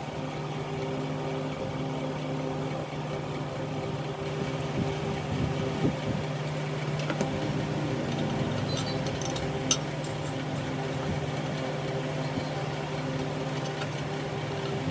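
Steady machine hum at one unchanging pitch, with a few light clicks and taps about halfway through.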